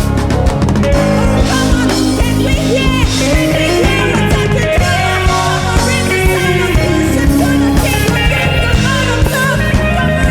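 Live band and choir playing a gospel song at rehearsal, with guitar, bass and drums under singing voices.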